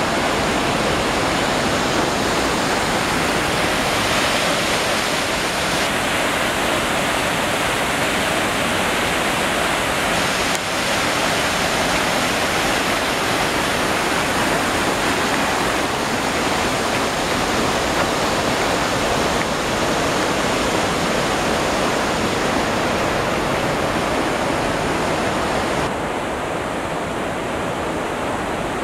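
River rapids: whitewater rushing over and between boulders, a loud, steady rush that eases a little near the end.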